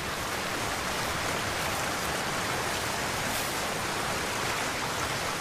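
Steady rushing of water heard as an even hiss with no distinct drops or splashes, in the manner of rain or a swollen river along the bank.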